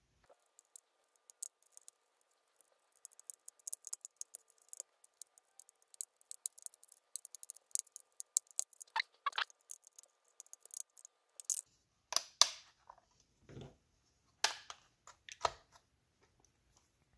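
Thin metal foil shield over a laptop's SSD being peeled up and lifted away with tweezers and fingers. It gives a long run of faint crackling ticks, then a few louder crinkles and scrapes in the last few seconds.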